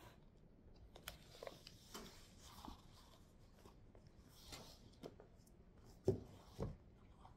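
A large textbook lifted from a stack and handled, with paper and sleeve rustling in short bursts. Near the end come two dull thumps against the wooden desk, the loudest sounds.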